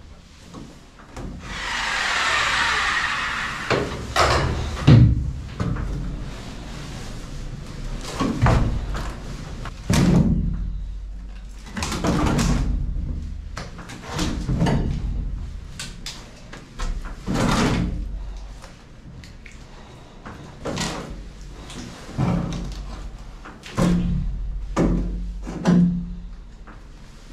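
A reciprocating saw rasps briefly into a boat's old wooden stringer. Then come about ten heavy wooden thumps and scrapes, roughly every two seconds, as cut sections of the stringer are knocked loose and pulled out of the fiberglass hull.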